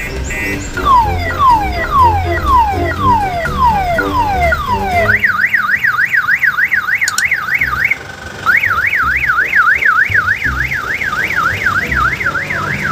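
Electronic siren on an odong-odong tourist train, cycling through patterns: falling whoops about twice a second for the first few seconds, then a fast up-and-down warble about four times a second, with a short break about eight seconds in.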